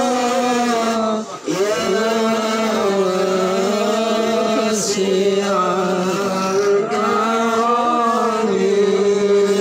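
Male devotional chanting in long, drawn-out held notes that slide slowly between pitches, with a brief break for breath about a second and a half in.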